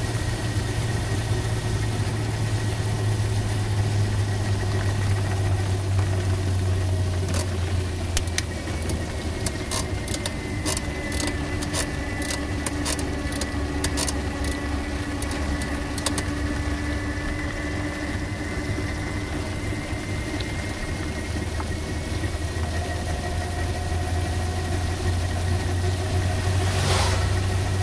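Ride noise inside a Better.bike PEBL, an enclosed electric-assist pedal vehicle, on a wet road in the rain: a steady low hum with faint gliding whines. A run of sharp ticks comes between about 7 and 16 seconds in, and a brief rush near the end as an oncoming car passes.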